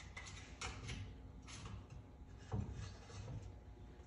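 Faint scattered clicks, taps and rubbing of hand tools working on the small two-stroke engine of a power hoe, with a duller knock about two and a half seconds in.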